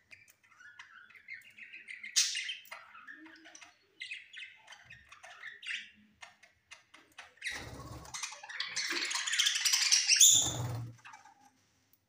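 A flock of budgerigars chirping and chattering: scattered soft warbling chirps at first, then a loud, dense burst of chatter in the second half. Two short flurries of wing-flapping come as birds shift perches.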